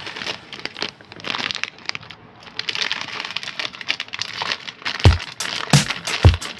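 Packaging crinkling and rustling, then three short dull thumps near the end.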